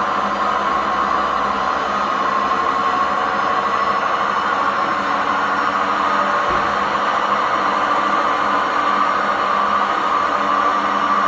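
Old washing machine spinning with a steady, loud whirring noise. The uploader puts the noise down to poor suspension and worn-out drum bearings.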